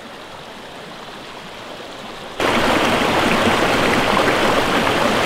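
Mountain stream running over boulders in shallow riffles, a steady rush of water. It is fairly quiet at first, then much louder from about two and a half seconds in.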